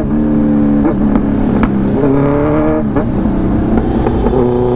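Sportbike engine under hard acceleration, its pitch climbing and dropping at upshifts about one and three seconds in, then holding steady, over wind rush, with a few sharp exhaust pops.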